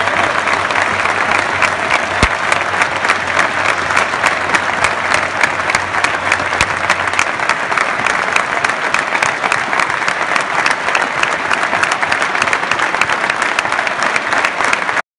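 Football stadium crowd giving a sustained ovation: thousands of fans clapping in a dense, steady wash of applause, which cuts off abruptly near the end.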